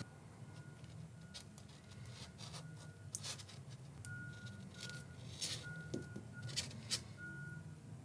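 Faint scattered clicks and ticks as crimped pin terminals are handled and pushed into a plastic wiring-connector housing, over a low steady hum.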